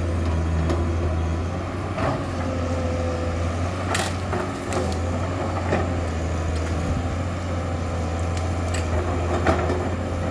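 Komatsu PC200-7 hydraulic excavator's diesel engine running steadily with a low hum, with a few sharp knocks over it, the loudest about four seconds in.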